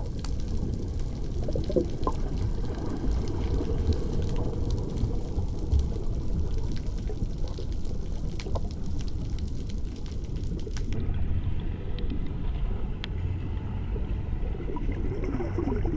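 Water sloshing and gurgling over a steady low rumble, with a fine high crackle that stops abruptly about two-thirds of the way through.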